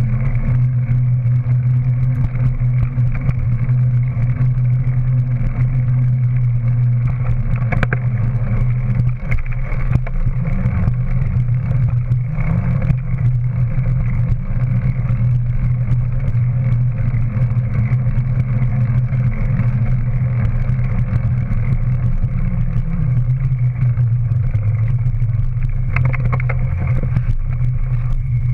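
Steady rumble of wind and tyre noise on a bike-mounted action camera as a Scott full-suspension mountain bike rolls over pavement, with a sharp knock from a bump about eight seconds in and a couple more near the end.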